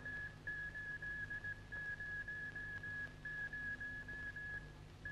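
A steady high-pitched whistle-like tone holds one pitch, cutting out briefly three or four times, over a faint low hum.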